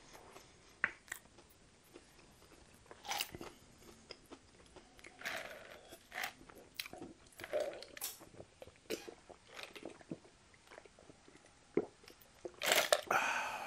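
Close-miked mouth sounds of eating: chewing and crunching with small wet clicks, then sips and swallows from a large paper drink cup. A louder stretch of mouth sound comes near the end.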